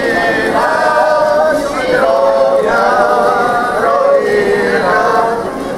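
A group of people singing a song together, men's voices leading, in phrases of long held notes.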